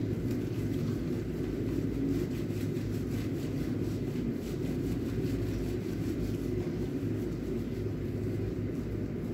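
Steady low background rumble, with faint rubbing and rustling of gloved hands scrubbing a soap-lathered cat's wet fur.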